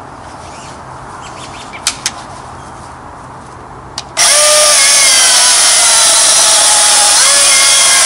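A few light clicks, then about four seconds in a Milwaukee M18 cordless electric chainsaw starts suddenly at full speed and cuts into a large log. Its motor pitch drops as the chain bites into the wood, then holds steady through the cut, dipping and recovering briefly near the end without bogging down.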